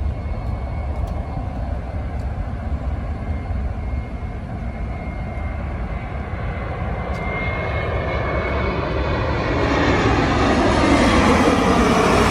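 Jet airliner on landing approach. Its engine noise grows steadily louder as it nears and peaks near the end, with a thin high whine over a low rumble.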